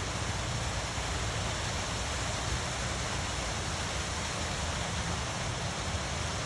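Stream and waterfall running, a steady even rush of water with a deep low rumble underneath.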